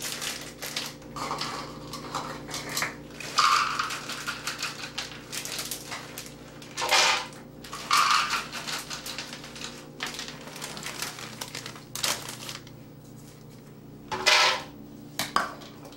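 Raw almonds being measured out: a plastic bag crinkling and whole nuts rattling into a measuring cup, then poured into a plastic blender jar in a few short rattling bursts, the last and loudest near the end.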